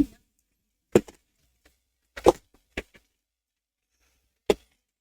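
Several separate sharp knocks and clicks, irregularly spaced with quiet between: laptop parts being handled and set down on a work surface during disassembly.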